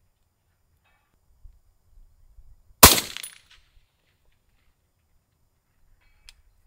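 A single shot from a suppressed PSA AR-10 rifle in 6.5 Creedmoor: one sharp, loud crack about three seconds in, trailing off over about half a second.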